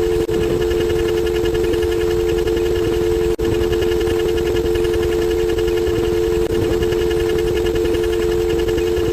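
A loud, steady, droning sound effect of two close low tones with a fast flutter higher up, cutting out for an instant twice: just after the start and about three and a half seconds in.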